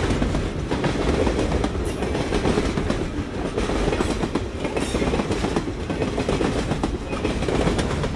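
High-speed train running on rails: a steady noise with a rapid, continuous clatter of clicks from the wheels on the track.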